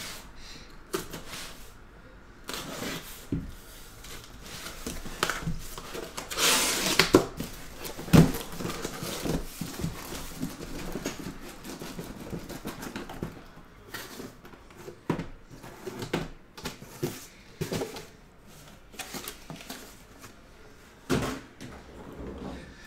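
Handling sounds as a cardboard case is opened and shrink-wrapped card boxes are lifted out and stacked on a table: cardboard scraping and rustling, a longer scraping rush about six and a half seconds in, and sharp knocks of boxes set down, the loudest about eight seconds in and again near the end.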